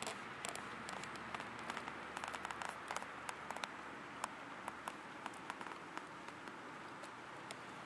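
A steady hiss with many scattered, irregular light clicks and taps, a few each second, thinning out somewhat in the second half.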